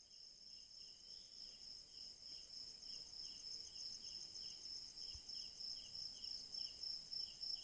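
Faint night insects: one keeps up a steady, high, pulsing trill while another chirps at a lower pitch about two to three times a second.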